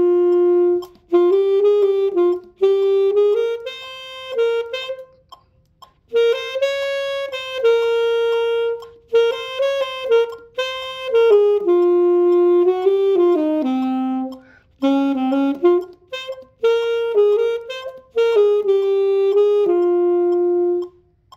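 Solo saxophone playing a written solo line: short phrases of held and moving notes separated by quick breaths, dipping lower in the middle and ending on a long held note near the end.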